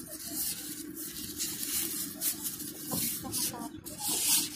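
Rustling and rubbing as a fabric backpack is rummaged and a drink bottle pulled out of it: a run of short hissy scrapes, loudest near the end, over a steady low hum.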